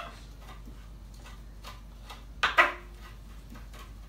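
Kitchen knife chopping fresh coriander on a wooden chopping board: a few scattered taps of the blade on the wood, with one louder knock about two and a half seconds in.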